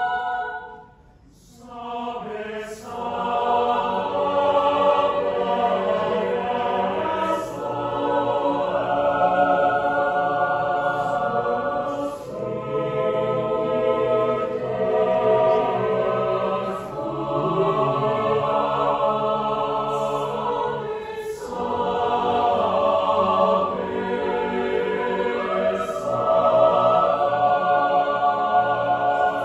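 Mixed choir of women's and men's voices singing a cappella in sustained harmony. The singing breaks off briefly about a second in, then resumes and carries on in held chords.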